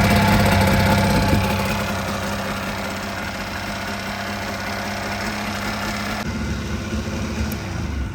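Three-cylinder outboard motor running steadily. No cooling-water tell-tale stream comes from it, a sign its water pump is not pumping.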